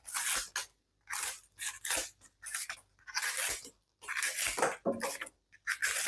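A senator-pattern slipjoint pocket knife slicing through double-thick cardboard in a run of about eight short cuts, each a crunching, tearing rasp with brief pauses between.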